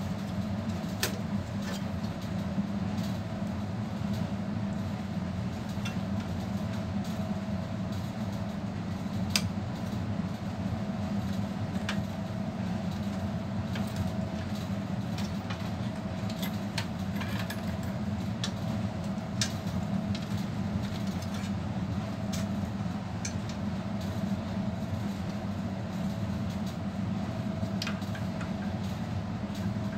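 A steady low hum with a faint higher tone runs throughout, with scattered light clicks and taps from hands handling a desktop PC's metal chassis and hard drive.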